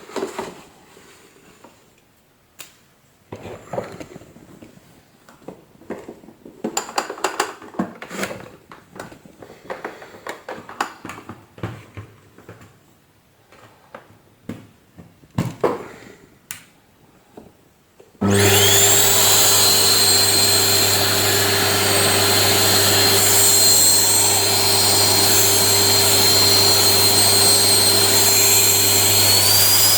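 Scattered clicks and knocks of handling, then, about two-thirds of the way in, the Panasonic MC-CJ911 vacuum cleaner switches on with a rising whine that settles into a steady run, its pitch stepping up slightly near the end. Its newly fitted 2000 W motor runs without the strange noise that worn carbon brushes and broken bearings had caused.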